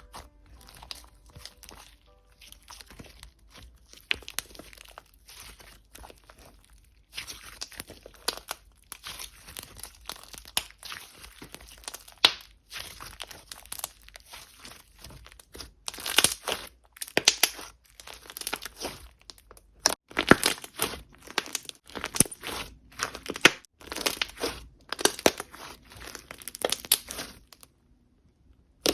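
Slime being squeezed, stretched and pressed by hand: irregular bursts of small clicks and crackles, sparse at first and busier and louder in the second half.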